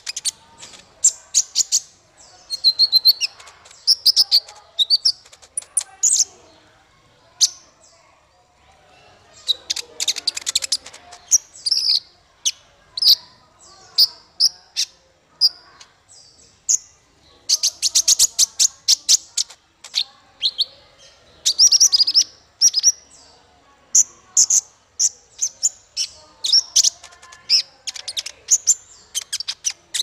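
Male kolibri ninja sunbird (konin) singing: a fast string of high-pitched chirps and twitters in bouts, broken by runs of sharp rapid ticks, with a short lull about a quarter of the way through.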